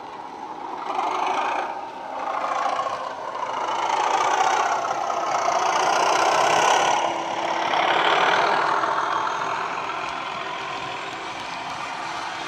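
Model Class 37 locomotive's sound decoder playing a recorded Class 37/0 diesel engine working under power through a small speaker, swelling as the model approaches, loudest around the moment it passes close, then easing off as it draws its train away.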